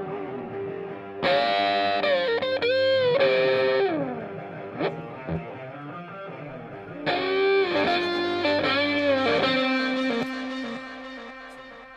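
Background music: a distorted electric guitar with effects plays two bending, wavering phrases, about a second in and about seven seconds in, each ringing out, then fades toward the end.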